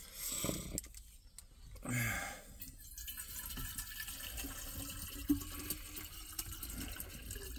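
Water pouring steadily from a large plastic bottle into a jug, starting about three seconds in after a couple of brief sounds.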